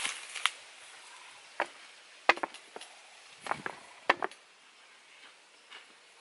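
A few sharp, irregular knocks and clicks of sticks and stones being handled on the ground, the loudest a little past two seconds and again around four seconds, then quiet.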